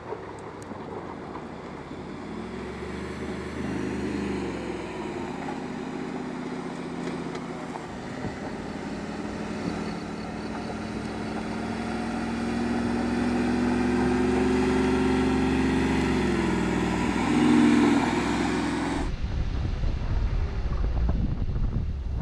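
Mercedes-Benz G-Class engine pulling under load up a steep off-road slope, its pitch rising slowly and then dropping. About 19 seconds in it cuts off abruptly to wind buffeting the microphone.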